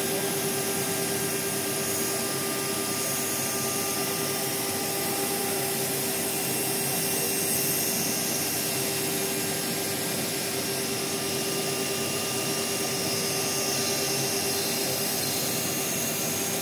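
Steady running of CNC router workshop machinery: a motor drones with one constant tone over an even hiss, with no change in speed.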